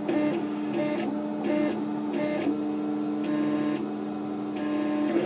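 Stepper motors of a DIY 3D printer singing as the print head lays infill at speed, a string of pitched tones that change every half second or so with each move. A steady low hum runs underneath.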